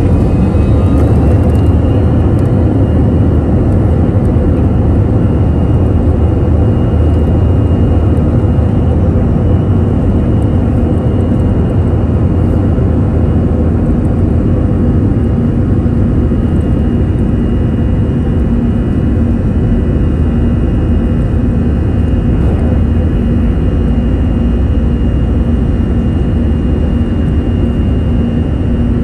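Airbus A321 jet engines at takeoff power: a thin whine rises in pitch over the first two seconds or so, then holds steady over a loud, even, deep rumble of engine and airflow.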